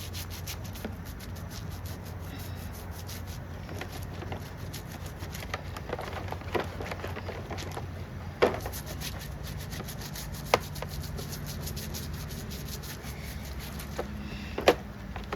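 A stiff brush scrubs grime off an old chainsaw part in rapid back-and-forth strokes. Three sharp knocks come partway through, the loudest near the end.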